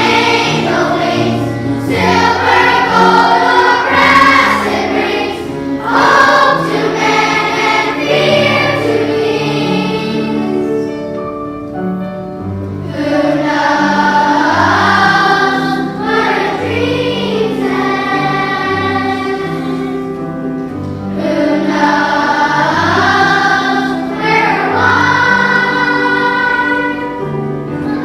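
A children's choir singing a song with instrumental accompaniment and a steady bass line.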